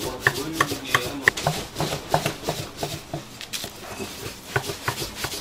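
Thin rolling pin rolling out dumpling wrappers on a floured wooden board, knocking and rubbing against the board about three times a second.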